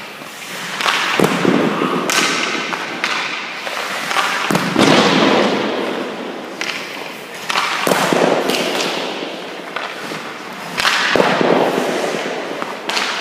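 Hockey pucks being shot at a goalie: four main sharp cracks, about three seconds apart, each followed by a long echoing wash of scraping and rink reverberation, with a few smaller knocks between.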